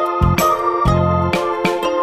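Background music: a keyboard-instrument tune with low bass notes and light percussion hits.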